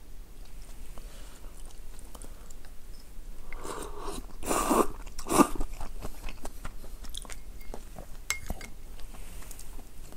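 A person eating instant ramyun noodles close to the microphone: two or three loud slurps a little under four to five and a half seconds in, with chewing and small mouth clicks around them.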